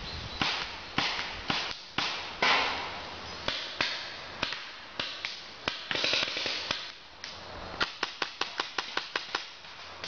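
Paintball markers firing: scattered sharp pops, then a fast string of about a dozen shots at roughly six a second near the end.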